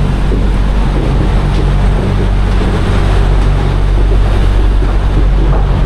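Fast ferry's engines running with a steady low drone, under a constant rushing noise of wind and water.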